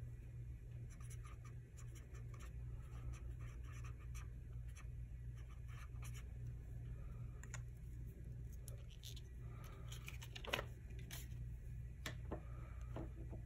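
Pen writing on planner paper: short scratchy strokes and small ticks, with a few louder clicks near the end, over a steady low hum.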